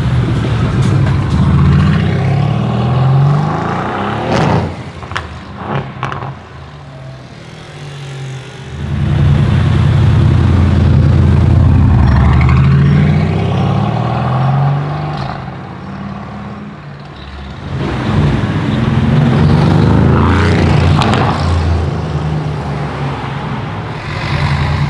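Mercedes-AMG GT S twin-turbo V8 through a custom straight-pipe exhaust, loud, repeatedly rising in pitch under hard throttle. A few sharp crackles come about five seconds in. The sound dies down twice and comes back loud.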